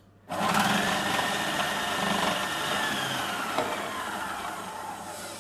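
Magimix Cook Expert food processor motor switched on, starting abruptly and running steadily with a faint whine as its slicing disc cuts a banana fed down the chute.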